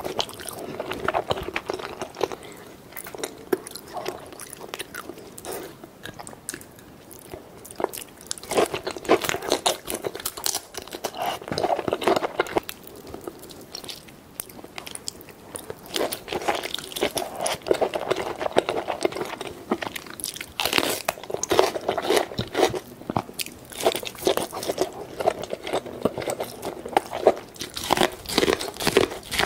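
Close-miked eating of a sauce-covered seafood boil: biting and wet chewing in irregular bursts of sharp clicks. Near the end come bites into corn on the cob.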